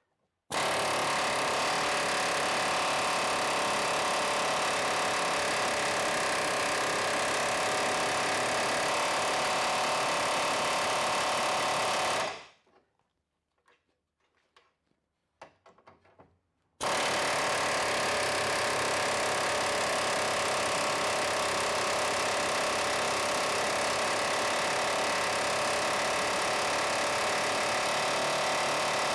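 A power tool running steadily against the seized rusty suspension hardware. It winds down about 12 seconds in, a few small clicks follow, and it starts again sharply about four seconds later.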